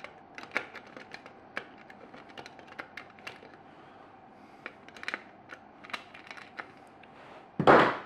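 Small irregular clicks and taps of a screwdriver and then needle-nose pliers on the plastic thermostat fascia and on the nut holding the thermostat shaft as it is worked loose, over a faint steady hum. Near the end comes a short, louder rushing noise.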